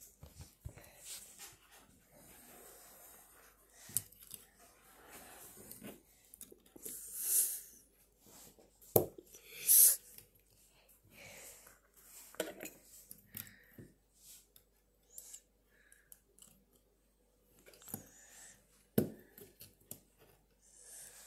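Plastic Lego bricks being handled and pressed together: scattered sharp clicks and light rustling, with a few brief, louder hissing sounds.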